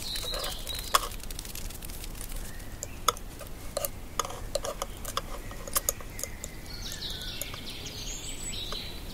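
Birds chirping in woodland ambience, with scattered sharp clicks and ticks. The chirps are clearest at the start and in the last couple of seconds.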